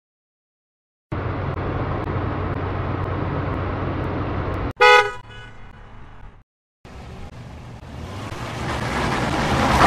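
Car sound effects in quick succession. A car engine runs steadily and is cut off by a single short car horn honk about four seconds in. After a brief gap, a vehicle's noise grows steadily louder until it stops abruptly at the end.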